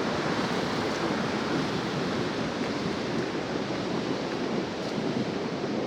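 Heavy rain falling steadily, a constant even hiss with no breaks.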